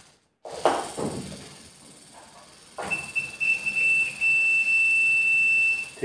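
Digital multimeter continuity buzzer giving one steady high beep for about three seconds, starting about halfway in and stuttering briefly at first, with its probes across a washing-machine spin timer switched on. The beep shows the timer's contacts are closed in the on position. Before it come a few clicks and knocks of handling.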